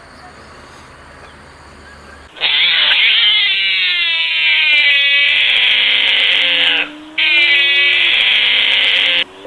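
Binturong calling: a long, loud drawn-out call with a sliding pitch begins about two seconds in, breaks off briefly, then a second call follows. Before it there is only faint background sound.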